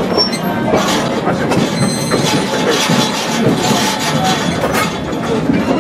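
The Hawaiian Railway excursion train rolling along the track, heard from aboard its open passenger car: a steady running rumble of the cars, with many small clicks of the wheels on the rails.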